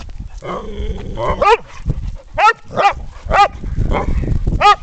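Boxer dogs play-fighting: about five short, high-pitched barks, spaced a half-second to a second apart.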